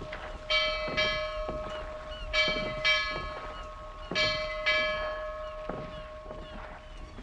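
A bell struck in pairs, two strikes about half a second apart, three pairs in all, each ringing on between strikes. Fainter knocks fall between the pairs.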